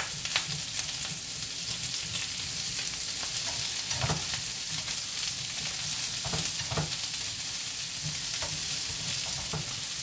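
Sliced meat and onion sizzling in oil in a frying pan, a steady hiss. Wooden chopsticks stir the pieces and knock against the pan now and then.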